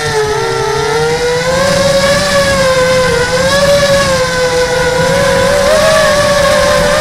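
Motor and propeller of a small RC aircraft, heard through its onboard camera: a steady whine whose pitch sags at first, then wanders slowly up and down with the throttle.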